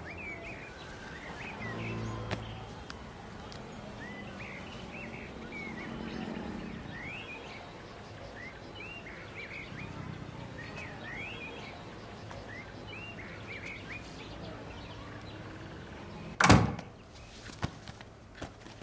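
Small birds chirping over quiet outdoor ambience, with many short rising chirps. About three-quarters of the way through comes a single loud thunk, the loudest sound here, followed by a couple of lighter knocks.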